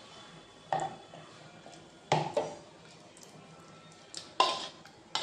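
A few short clinks and knocks of a ceramic plate against a ceramic bowl as yogurt-marinated chicken pieces are slid off the plate into the bowl, coming a second or two apart.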